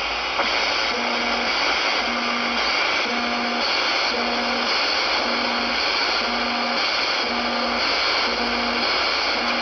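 FM radio receiver hiss with the pulsing interference of a 27.940 MHz data pager on the UK FM CB channel. Short tone pulses, each about half a second long, repeat about once a second.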